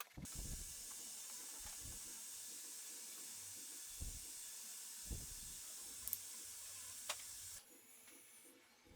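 A steady high hiss with a few soft knocks, cutting off suddenly about seven and a half seconds in.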